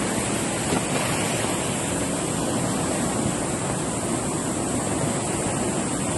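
Muddy floodwater rushing past in a fast, turbulent flash flood, a steady unbroken rush of water noise.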